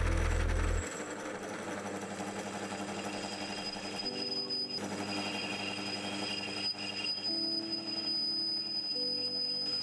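Drill press spinning a cutter down into an aluminium handwheel, cutting metal with fluid flung off the tool. A low hum stops about a second in, and a steady high whine joins about three seconds in.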